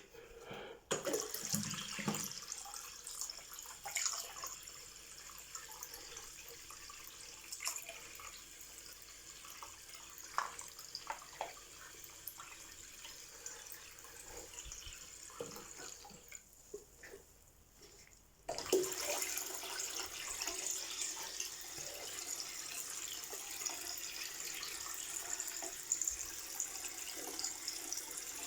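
Water running from a tap into a basin with splashing, and small knocks of plastic toy boats in the water during the first half. About two-thirds of the way through the flow drops away for a couple of seconds, then comes back louder and steadier.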